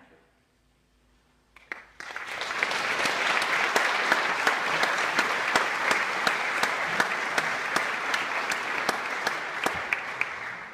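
Congregation applauding. A few scattered claps come first, then full applause builds about two seconds in, holds steady and fades away near the end.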